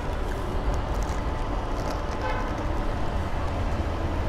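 City street traffic: a steady low rumble of passing vehicles, with short car horn toots a few times.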